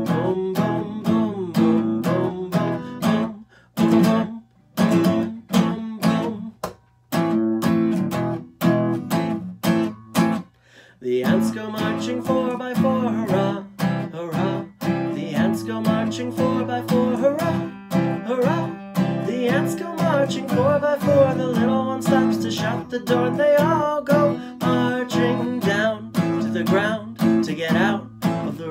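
Acoustic guitar strummed in a steady rhythm, with a few short breaks in the first half. From about the middle, a man sings over it.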